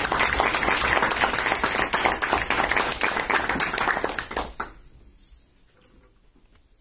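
Audience applauding with dense, steady clapping that dies away about four and a half seconds in.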